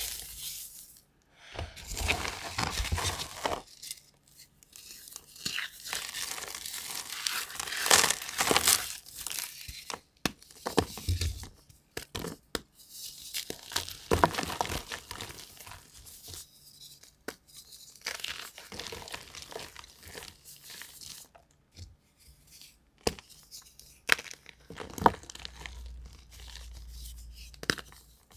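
Blocks of gym chalk (magnesium carbonate) crushed and broken by hand: irregular spells of crunching and crumbling, with sharp snaps as pieces break off.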